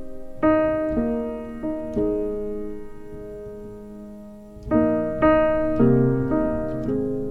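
Soft piano background music: a slow melody of struck notes and chords left ringing and fading, with a pause of about two seconds before a new phrase starts about five seconds in.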